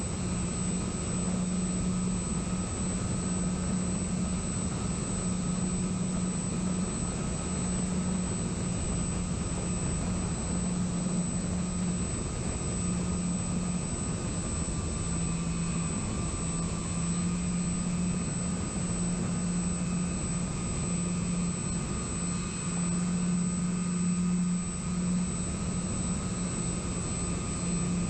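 Electric motors and propellers of a radio-controlled model plane running steadily in flight, heard from its onboard camera: a low drone that swells and dips every second or so, a thin high whine above it, and rushing airflow.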